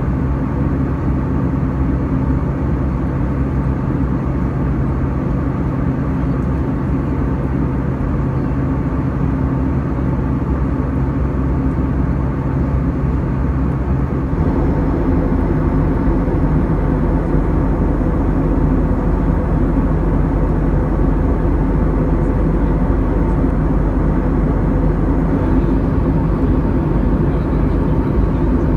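Airbus A320-200 passenger cabin in cruise: a steady drone of airflow and engine noise with a low hum in it. About halfway through, the low hum shifts and the drone grows slightly louder.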